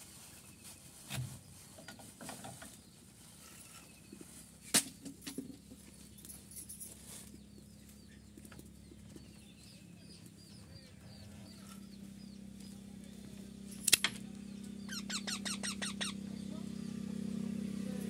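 Young parakeets squeaking: faint scattered chirps and clicks, then near the end a quick run of about eight shrill, downward-sweeping squeaks. A low steady hum grows louder through the second half.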